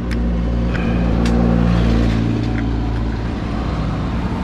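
Suzuki Smash 115's single-cylinder four-stroke engine, freshly fitted with a 57 mm big-bore cylinder block, running steadily and rising a little in speed about one to two seconds in. There are a few light clicks over it.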